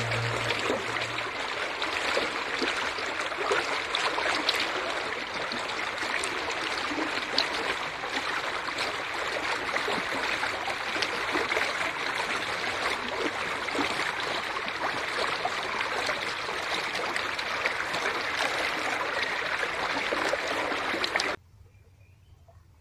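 Shallow river water rushing and splashing over fallen logs and driftwood: a steady rush full of small splashes. It cuts off suddenly about a second before the end, leaving near silence.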